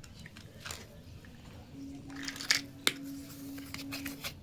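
Small plastic toy kitchen pieces handled and set down: a few sharp clicks and taps, the loudest two about halfway through, with a faint steady hum in the second half.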